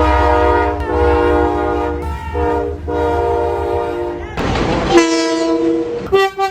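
Train horns sounding: long chord-like blasts over a low rumble for about four seconds, a burst of hiss, then a shorter single-note blast and a few short toots near the end.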